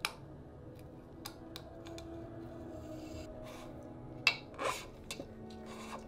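Handling noise from bicycle cable housing being worked along a road bike's handlebar: scattered sharp clicks, the loudest a little past four seconds in, then a brief rubbing swish. Soft background music plays throughout.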